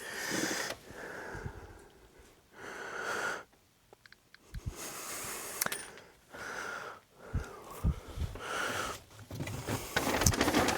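A person breathing heavily, with slow, noisy breaths every second or two, and a few light knocks in between.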